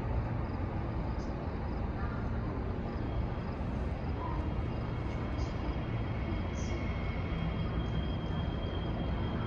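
Steady low rumble of city and rail-yard background noise. A faint thin high whine comes in about halfway through, and there are a few short, faint high chirps.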